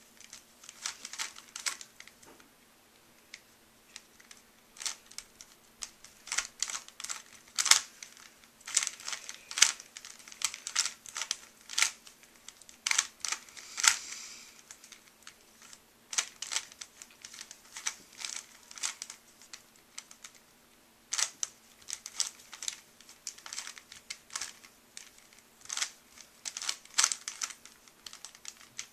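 A Rubik's Cube being turned by hand: runs of quick plastic clicks and clacks, broken by short pauses between sequences of turns.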